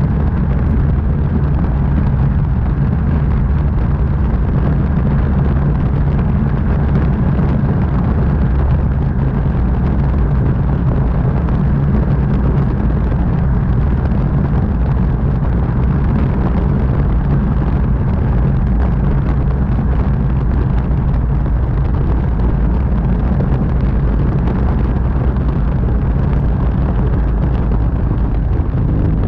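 Light aircraft's engine and propeller droning steadily in flight, heard from a camera mounted outside under the wing, with heavy wind rush on the microphone.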